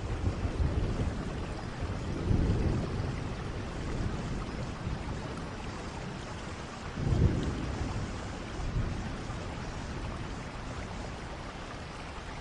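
Steady rain falling with low rolls of thunder rumbling through it, swelling about two seconds in and most strongly about seven seconds in.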